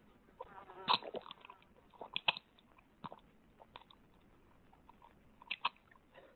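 A man drinking noisily from a mug: scattered gulps and wet mouth noises with light clicks, and a short throaty gulp about a second in.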